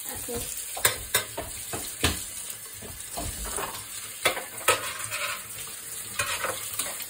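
Kitchen tap running steadily into a stainless steel sink as a metal mesh strainer is rinsed under the stream, with several sharp knocks and clinks of the strainer against the sink.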